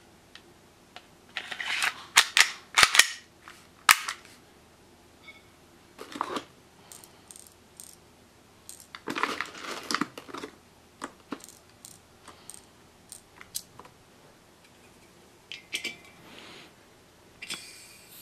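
Sharp plastic-and-metal clicks and snaps of a Well G197 gas blowback airsoft pistol's slide being fitted back onto its frame. Then crinkling of a plastic BB bag and small clicks as BBs are pushed into the magazine. A gas hiss starts near the end as the magazine is filled from a gas can.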